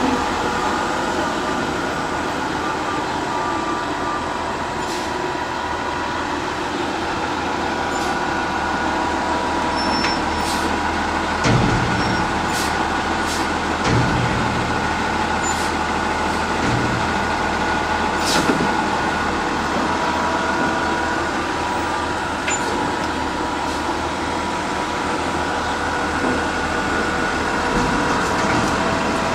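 Front-loader garbage truck (American LaFrance Condor chassis with a New Way Mammoth body) running steadily as it manoeuvres, with a steady high whine over the engine. A few short, sharp clanks or hisses come through the middle, with brief low surges of the engine.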